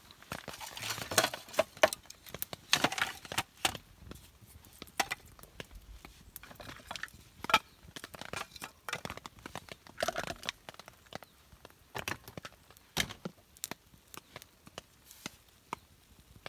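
A series of irregular sharp cracks and knocks with some crinkling in between, from objects being handled.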